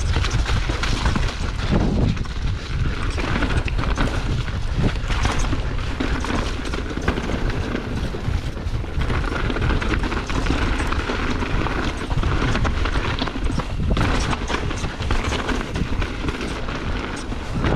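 Mountain bike descending a rocky trail: tyres rumbling and clattering over stones and roots, with the bike rattling and wind rumbling on the camera microphone.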